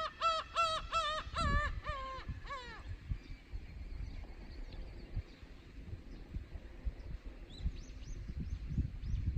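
Gull calling in a quick series of about eight yelping notes, roughly three a second, that stops about three seconds in. A low rumble runs underneath throughout, with a few faint, distant high calls near the end.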